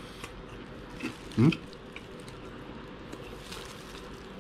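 A man eating, with faint small mouth clicks and one short rising 'mm' grunt of approval about a second and a half in.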